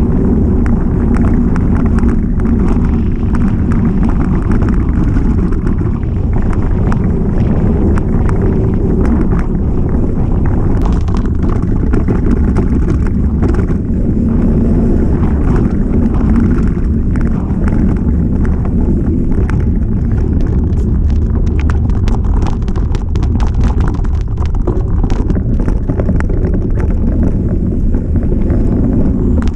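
Mountain bike on a fast descent over rough ground: a steady rumble of wind on the camera microphone and tyres on the trail, with many small rattles and knocks from the bike over stones, growing busier in the second half.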